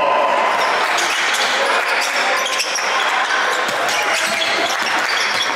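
Basketball dribbled on a hardwood gym floor, a series of thumps over a steady din of crowd chatter.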